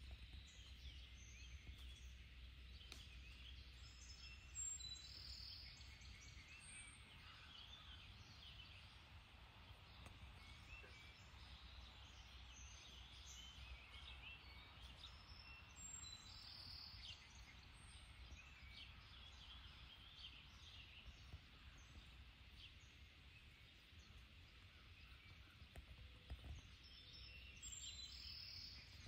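Faint ambience: small birds chirping here and there over a low steady rumble, with a few short, slightly louder calls now and then.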